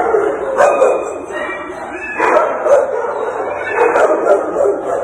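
Dogs barking in a shelter kennel, loud, with repeated barks at irregular intervals.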